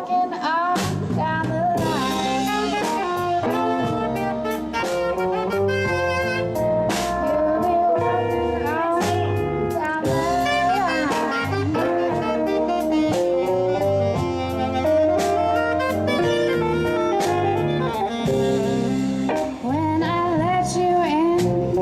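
Live band playing an instrumental break: a saxophone carries a bending lead line over bass and drum kit.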